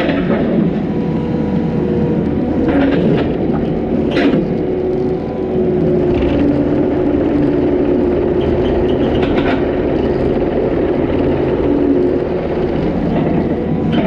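Compact loader's diesel engine running steadily, its pitch wavering slightly as the machine works, with a few short knocks and rattles from the wooden railroad ties on the pallet forks.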